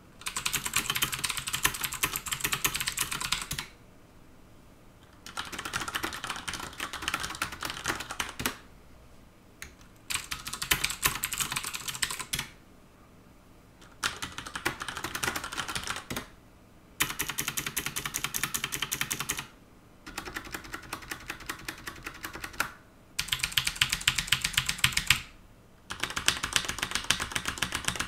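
Fast typing on mechanical keyboards with Cherry MX Blue and Cherry MX Brown switches, in about eight runs of two to three seconds each with short pauses between. Some runs are louder than others; the Blue switches give a rather clicky, high-pitched sound.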